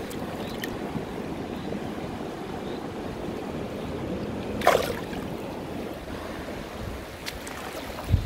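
Shallow river water running steadily over stones, with a sharp splash about halfway through as the brown trout is let go and swims off. A low thump near the end.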